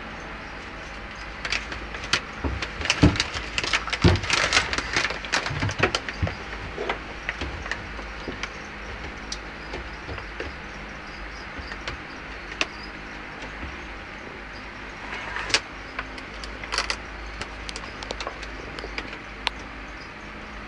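Steady low hum with two spells of rustling and sharp clicks, a longer busy one a couple of seconds in and a shorter one near the end.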